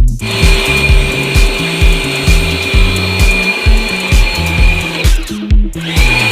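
Background music with a steady beat and bassline, over the steady whine of an electric pressure washer's motor. The whine stops about five seconds in and starts again near the end.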